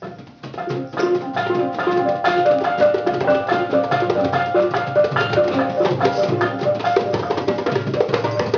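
A group of children playing percussion together: hand drums beating in a loose rhythm while pitched metal and mallet instruments, such as a handpan and glockenspiels, ring repeated notes over them. It starts about a second in.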